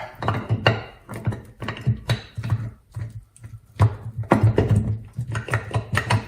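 Repeated irregular knocks and taps, several a second, as the shaft and gear assembly is worked back into the snowblower gearbox case.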